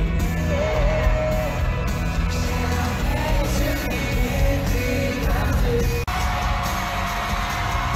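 Pop-rock band playing live in an arena, recorded from the crowd, with a male lead vocal singing over heavy bass and drums and fans yelling. About six seconds in it cuts to a held chord with the crowd cheering.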